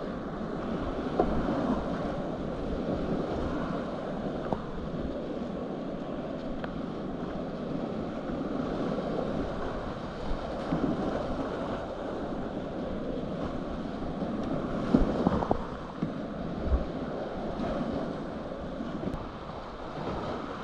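Whitewater rapids rushing steadily around a kayak running the river, heard close up, with a few sharp knocks about three quarters of the way through.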